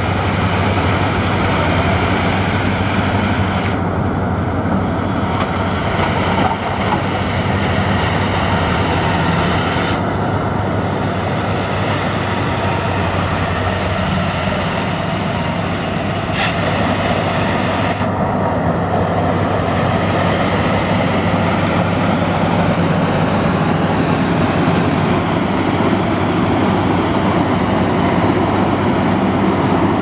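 Crown Sumo rice combine harvester running steadily as it cuts standing rice: a continuous engine hum under the noise of the machinery.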